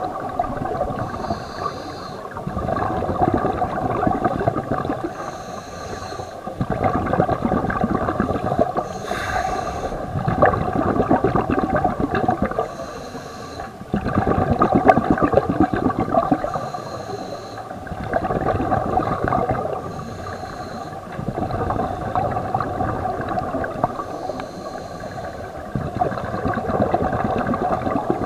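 Scuba diver breathing through a regulator, heard underwater: a short hiss on each inhale, then a long bubbling rush of exhaled air, repeating about every four seconds.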